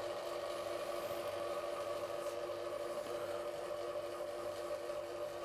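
Small electric motor of a lure-drying wheel running, a steady even hum, as the wheel turns the freshly epoxied lures.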